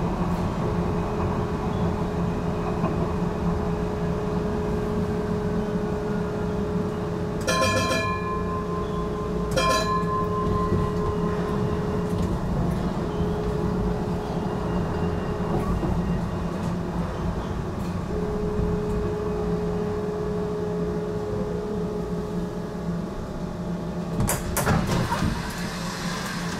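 HTM GTL8 tram running, heard from inside the cab: a steady rumble of wheels on rail with a steady motor whine that drops out twice. A short multi-tone warning signal sounds about seven and a half seconds in and again two seconds later, and a brief rattle comes near the end.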